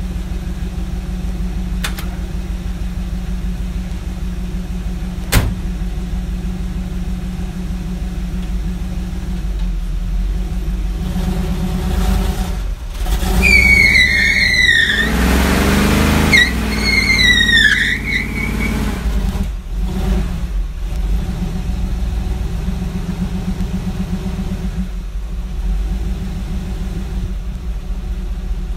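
1955 Chevy pickup's engine idling, then revved hard for several seconds from about eleven seconds in while the blocked truck's rear tires spin in a burnout, squealing in two spells. The engine then drops back to a steady idle.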